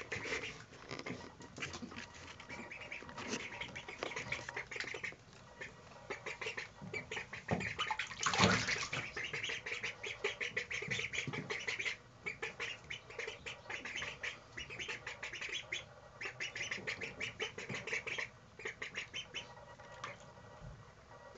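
Young ducks calling in rapid strings of short quacks and squawks while swimming in a bathtub, with a few brief pauses. One louder burst comes about eight seconds in.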